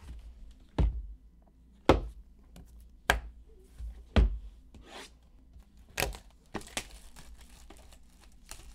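Sharp clicks and taps about once a second as a sealed trading card box is handled and its shrink wrap slit with a box cutter. Near the end comes the crinkle of the cellophane wrap being peeled off.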